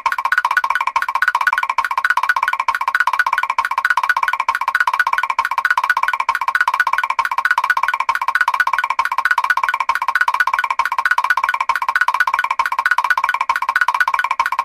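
Mr. Krabs' walking sound effect from SpongeBob SquarePants, looped: a fast, even patter of short, high, pitched taps repeating without a break.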